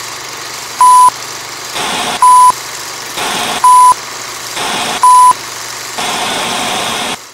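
Old-film countdown leader sound effect: a steady whirring, crackling film-projector-style noise with four short beeps about a second and a half apart, cutting off just before the end.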